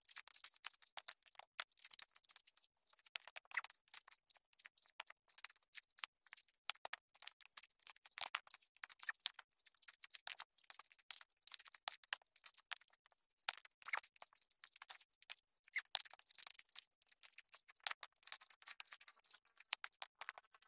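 Coconuts being husked by hand on upright spikes: dry husk fibres crackling and tearing in a dense, irregular run of sharp clicks.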